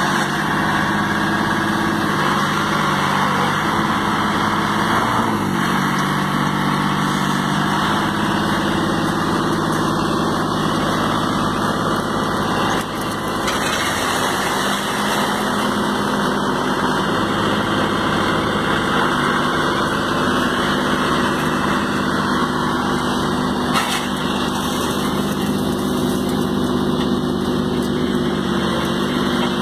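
Engine of a small self-loading concrete mixer truck running steadily.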